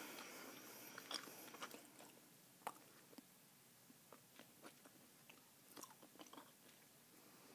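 Faint, scattered wet clicks and smacks of a mouth chewing a wad of Bazooka bubble gum close to the microphone, with one slightly sharper click a little under three seconds in.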